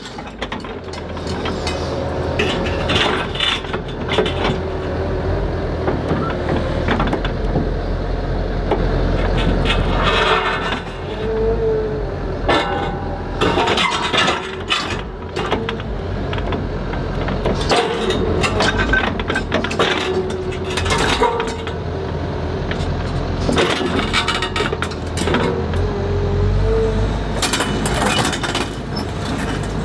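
Komatsu HB215LC hybrid excavator running, its engine and hydraulics making a steady low hum with a whine that wavers in pitch as the boom and grab move. Repeated clanks and knocks come from the grab attachment working among the rocks.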